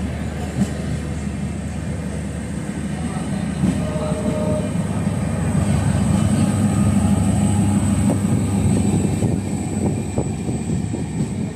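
Indian Railways diesel-electric multiple unit (DEMU) train passing on the adjacent track, heard close by as a steady rail rumble with wheel clatter. It grows loudest as its diesel power car goes by, about six to nine seconds in.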